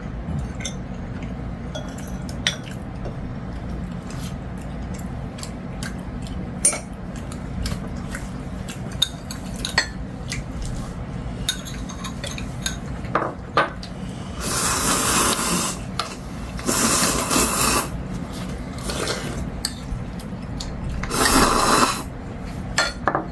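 Chopsticks and metal spoons clicking and scraping against ceramic bowls and plates during a meal, in many small taps. In the second half come three longer rushing noises, the last as a bowl is lifted to the mouth, which fit slurping of food or broth.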